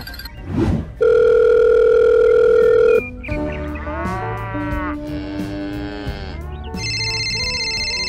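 Cartoon sound effects: a quick whoosh, a loud steady tone held for about two seconds, then a sliding, wavering pitched sound. Near the end a phone ringtone starts, from a toy phone on a toy tractor.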